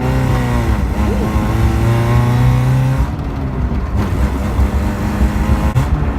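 Car engine driving under load, heard from inside the car: a steady engine note that eases off about three seconds in, as for a gear change or lift-off, and picks back up near the end.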